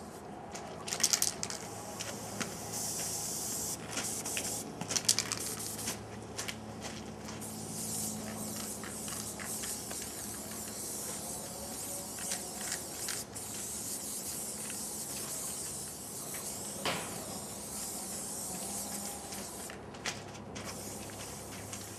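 Aerosol spray-paint cans hissing in repeated bursts of varying length as a piece is painted, with a few sharp clicks between bursts.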